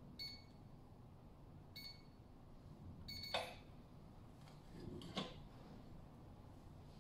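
Electronic keypad of a small steel safe beeping as code keys are pressed, short high beeps about a second and a half apart. About three seconds in a louder beep comes with a sharp click as the solenoid lock releases, and about five seconds in a metallic click as the handle is turned to draw back the bolts.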